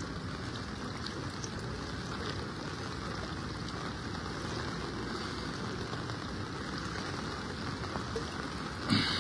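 Heavy rain falling, a steady rushing hiss, with a short louder sound near the end.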